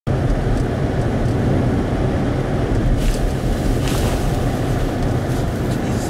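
Steady low road and wind noise inside a car's cabin while driving through a blizzard, with two brief higher swishes about three and four seconds in.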